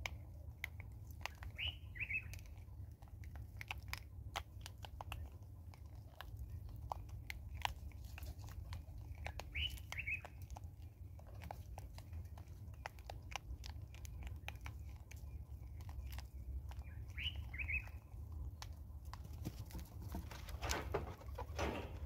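Vervet monkeys crunching dried maize kernels: irregular sharp cracks and clicks throughout. A bird gives a short two-note chirp three times, about eight seconds apart.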